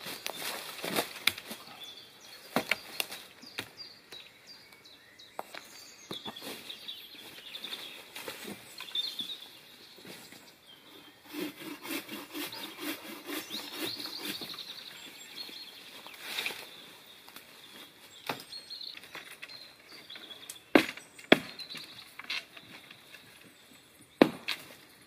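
Sticks and dry brush rustling, cracking and knocking as thin saplings are cut with a hatchet and the poles handled and dropped onto a pile, with a few sharp wooden knocks near the end the loudest. Faint birds chirp behind.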